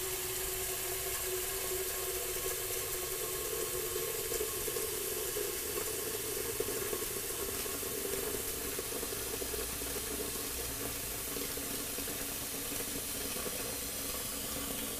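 Water running from a kitchen tap into a stainless steel saucepan: a steady splashing rush whose pitch changes as the pot gets more full. It cuts off suddenly at the very end as the flow stops.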